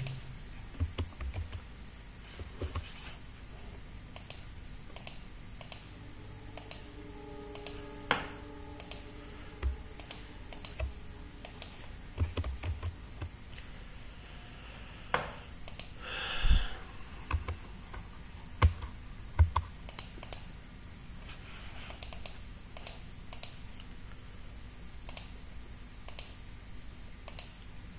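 Computer keyboard keys and mouse buttons clicking at irregular intervals, with short runs of typing as values are entered into pattern-drafting software.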